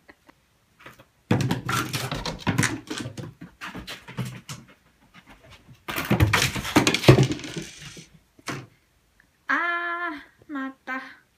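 Scuffling and knocking on a wooden floor in two stretches, as a cat hops and pounces about while playing. Near the end comes one short, level-pitched vocal call, then two brief ones.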